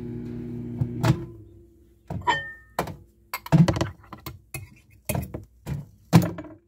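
A string of hard knocks and clinks as a small glass cup and tools are handled and set down on a wooden workbench. A steady hum stops with a click about a second in.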